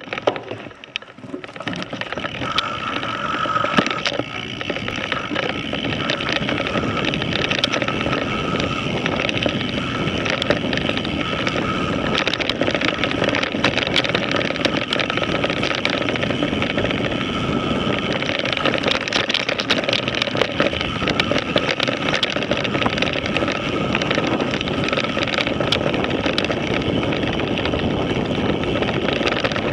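Mountain bike riding down a dirt singletrack, heard from a camera mounted on the bike: a continuous rush of knobby tyres on dirt and wind on the microphone, with many short rattles and clicks from the bike and the brush. The noise builds over the first few seconds, and a thin steady whine runs through the first half.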